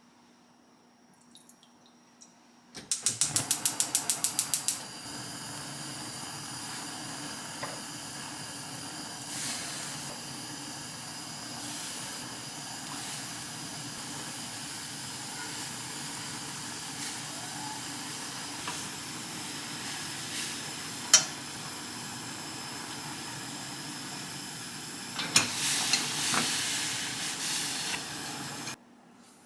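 A gas stove clicking rapidly for about two seconds as its igniter sparks, then the burner hissing steadily. Near the end the hiss grows louder and rougher with a few clicks before it cuts off suddenly.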